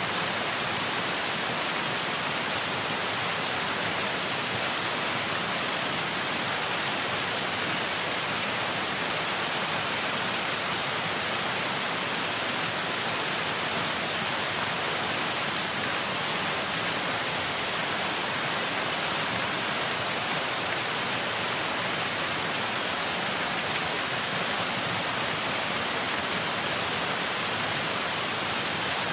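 Television static: a steady, even hiss of white noise from an untuned TV, brightest in the high range with no tones or breaks.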